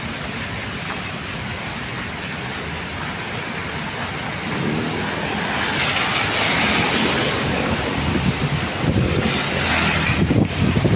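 Typhoon wind and rain, the gusts buffeting the microphone with a low rumble that grows stronger about four seconds in. A car passes on the wet road about halfway through, its tyres hissing on the water.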